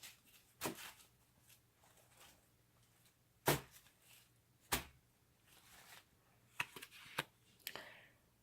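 Short, scattered rustles and crinkles of wrapping being handled as a package is unwrapped. There are about eight of them, the loudest about three and a half seconds in, with a quick cluster near the end.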